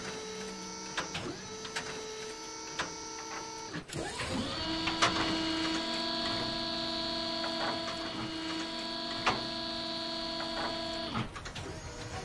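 Machinery sound effect of a motorised mechanism running: a steady electric whine made of several tones, with sharp clicks and clacks. The whine shifts to a new, louder set of tones at about 4 s and cuts off near the end.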